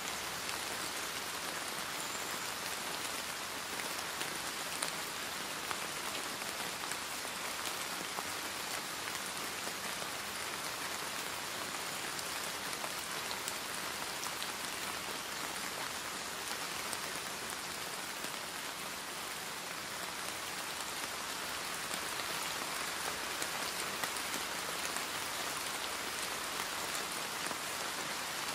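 Steady rain, an even wash of falling rain with faint scattered drop ticks and little low rumble.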